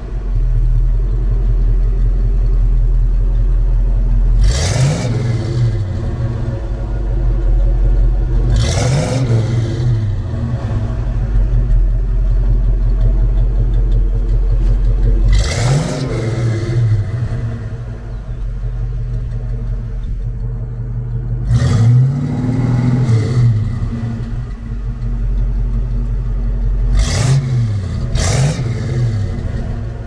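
Classic Ford Mustang's engine running through a 2-inch dual turbo-style exhaust with Magnaflow-like mufflers: a deep bass idle, blipped about seven times, each rev rising and dropping quickly back to idle.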